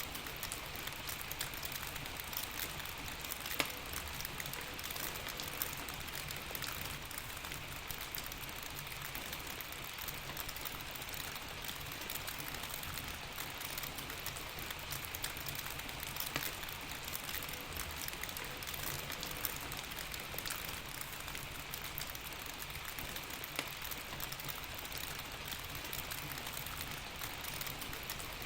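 Steady rain, with a few sharp clicks now and then.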